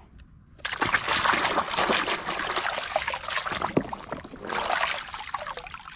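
Muddy water sloshing and splashing in a plastic basin as a hand swishes a toy truck through it. It starts about half a second in and eases briefly near four seconds before going on.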